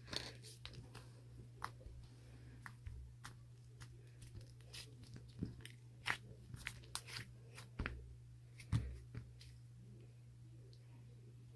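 Irregular short clicks and taps, dozens of them, over a steady low hum.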